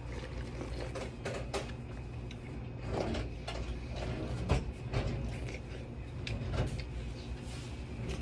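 Scattered knocks and clicks of things being handled, over a steady low hum.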